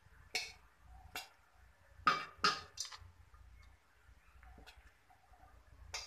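Light taps and clinks of a utensil against a metal cooking pot as cooked rice is spooned in over the chicken: about seven short knocks, the loudest three close together around two to three seconds in.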